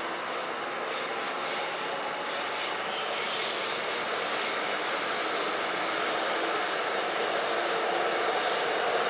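Seoul Subway Line 3 train running between stations: a steady rush of wheel and track noise, with faint whining tones, growing gradually louder.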